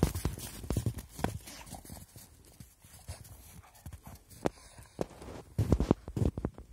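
Footsteps crunching on crusted snow as a dog walks through it: an irregular run of soft crunches, loudest in a quick cluster of steps about six seconds in.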